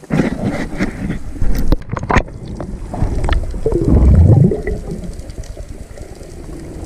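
Muffled underwater water noise heard through a diver's camera housing, with a few sharp knocks in the first couple of seconds and a louder sound falling in pitch about four seconds in.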